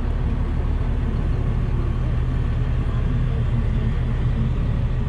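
Diesel engine of farm harvest machinery running steadily, a low, even rumble heard from inside the cab.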